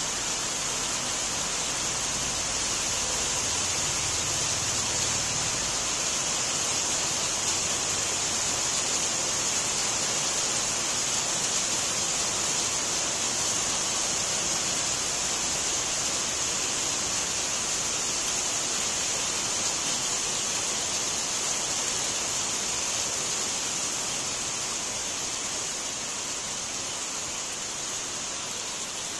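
Steady moderate rain falling, an even rushing noise with no let-up.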